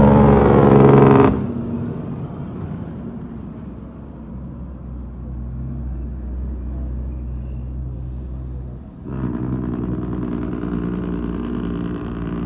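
Heavy truck's diesel engine running loud under throttle with its pitch rising, then dropping off abruptly about a second in. It runs quieter for several seconds and comes back on throttle near the end.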